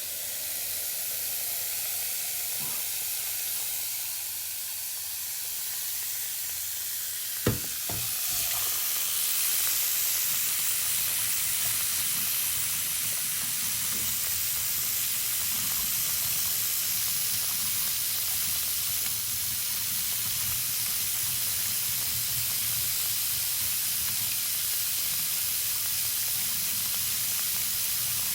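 Running water: a steady, hissing flow. A sharp click comes about seven and a half seconds in, after which the flow is a little louder.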